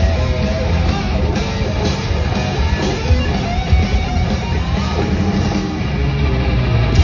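Heavy metal music: electric guitar lines over a drum kit.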